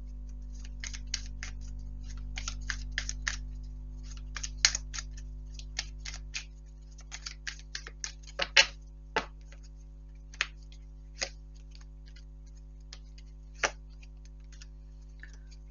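Tarot cards handled and shuffled by hand: an irregular run of crisp clicks and flicks of card against card, busy at first and thinning out in the second half, over a steady low hum.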